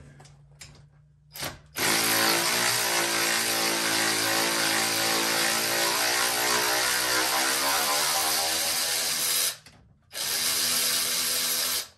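Cordless Hercules 3/8-inch brushless 20 V impact wrench spinning out a long bolt: a brief blip, then about eight seconds of continuous motor whir, a short pause, and a second run of about two seconds.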